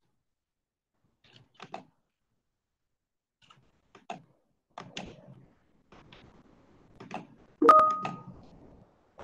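Scattered short clicks and knocks, about half a dozen, the loudest near the end with a brief ringing tone like a short beep.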